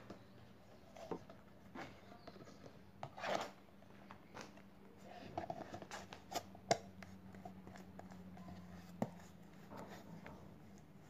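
Paintbrush stirring a wet cement-mortar and PVA-glue slurry in a small plastic tub: soft scraping and wet stirring, with scattered small clicks and knocks of the brush against the tub, the sharpest one a little past halfway.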